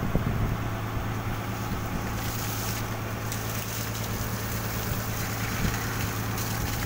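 Fishing boat's engine running steadily, a constant low hum with a steady hiss over it, and a couple of knocks right at the start.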